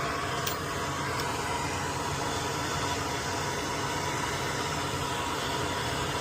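Steady blowing hiss of a small electric blower or fan motor, with a faint low hum underneath.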